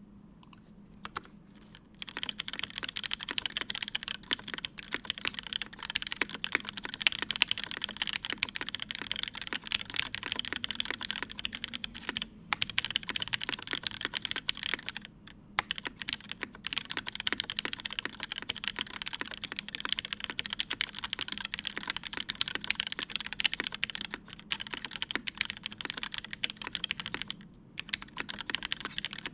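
Steady typing on a TGR 910ce custom mechanical keyboard with lubed and filmed Cherry Hyperglide black linear switches, a brass plate and GMK keycaps: a dense run of irregular keystrokes. The typing begins about two seconds in and breaks off briefly a few times.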